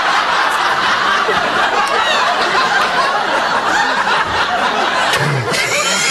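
Studio audience laughing heavily and continuously, with the actors breaking into laughter.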